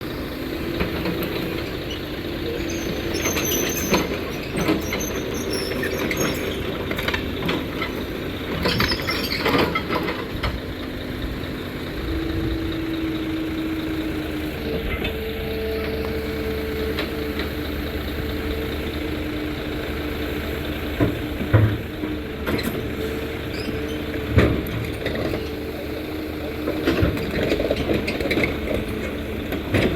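Cat 320 hydraulic excavator running as it works, its engine and hydraulics giving a steady drone with whining tones that shift in pitch, broken by sharp knocks and clanks at intervals.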